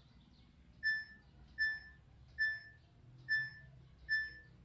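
Samsung washing machine's control panel beeping: five short, identical electronic beeps a little under a second apart, as buttons are pressed to set the machine to the spin cycle.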